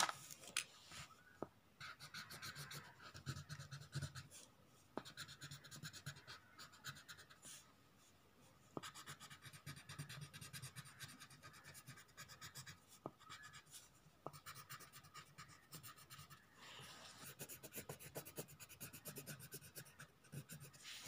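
Colored pencils shading on paper on a clipboard: faint, rapid back-and-forth scratching strokes that pause now and then, with a few light ticks.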